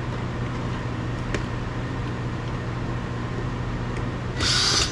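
Steady low hum of workshop background noise, with a faint click about a second in and a short, loud burst of hiss near the end.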